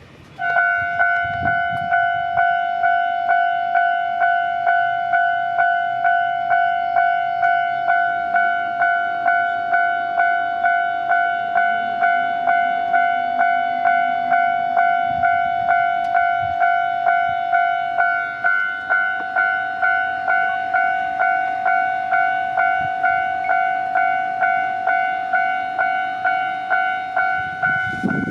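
Japanese level-crossing warning bell starts about half a second in and rings a fast, even ding-ding just under twice a second, each stroke a bright multi-pitched tone. Near the very end the low rumble of an approaching train comes in under it.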